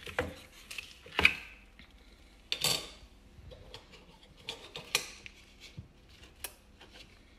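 Wooden toy cash register being handled: scattered clicks and knocks of its wooden drawer and parts, the loudest about a second in, with rustling as paper play money is taken from the drawer.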